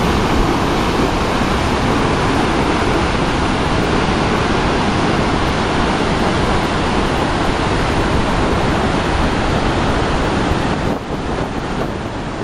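Large waterfall plunging over a granite ledge, heard from its brink: a loud, steady rush of falling water that eases a little near the end.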